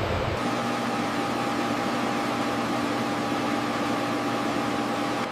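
Steady mechanical hum and hiss with several constant tones. A deeper rumble cuts off about half a second in.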